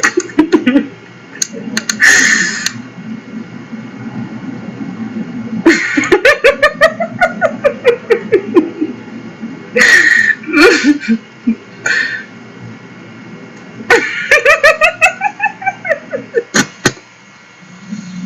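A person laughing hard in several bouts of quick pulsing laughs, each rising and then falling in pitch. The two longest bouts last two to three seconds.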